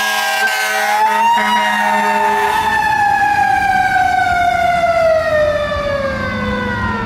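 Fire truck's mechanical siren, rising briefly about a second in and then winding slowly down in pitch as it coasts.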